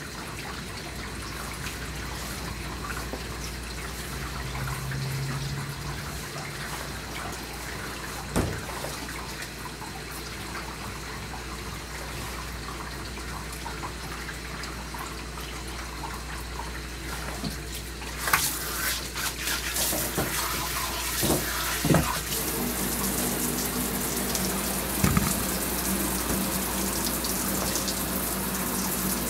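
Water running in a grooming tub, a steady hiss that grows louder and brighter about two-thirds of the way through, with a few short knocks.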